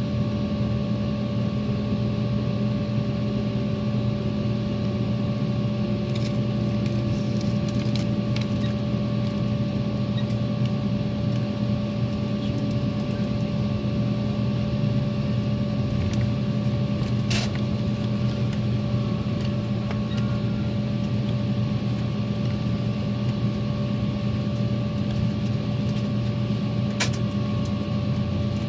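Steady cabin hum of an airliner taxiing after landing: the engines running at low taxi power, with a constant low drone and a few fixed tones over it. Two short sharp clicks, one a little past halfway and one near the end.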